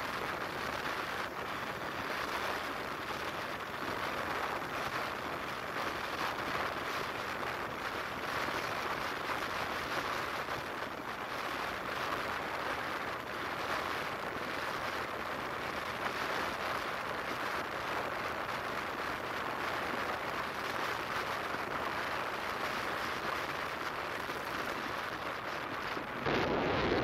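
Steady road noise from a vehicle driving along a paved street: an even hiss of tyres and air. Near the end it turns louder and lower, like wind buffeting the microphone.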